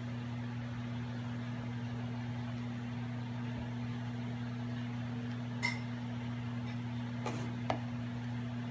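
Steady low mechanical hum, with a few light clinks of a spoon against the pie dish as streusel topping is spooned over the pie, about two thirds of the way in and again near the end.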